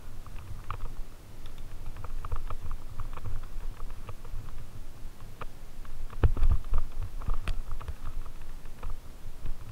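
Fat-tyre bike rolling over a dirt trail covered in dry fallen leaves: irregular crackling and clicking of leaves under the tyres and rattling of the bike over a steady low rumble, with heavier knocks about six and seven seconds in.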